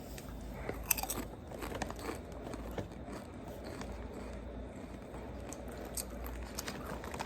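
Potato chips being bitten and chewed: a run of short, crisp crunches, the sharpest about a second in.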